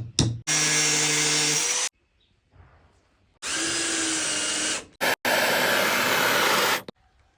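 Electric power tool running in three runs of a second or more, each starting and stopping abruptly, after a few very short bursts, with quiet gaps in between.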